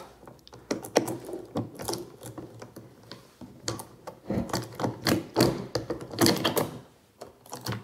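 Steel saw chain of a mini electric chainsaw clicking and rattling as it is worked off the guide bar by hand: irregular small metallic clicks and rattles, quieter near the end.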